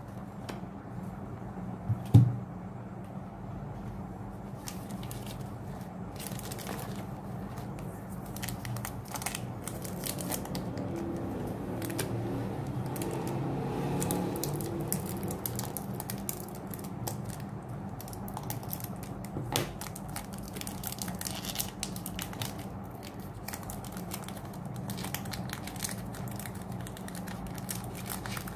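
Foil booster-pack wrapper crinkling and tearing as it is handled and opened, with many small crackles. A single sharp thump comes about two seconds in, over a steady low hum.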